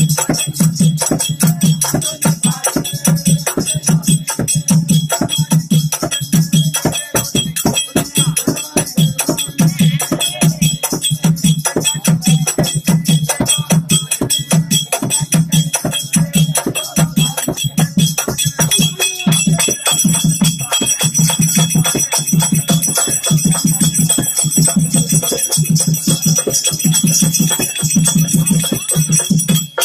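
Loud dance music with a steady low drum beat and rattling, jingling percussion.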